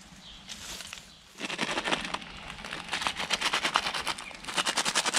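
Rapid rustling, crunching footsteps through long grass and undergrowth. They start about a second and a half in and run on fast and even, several steps a second.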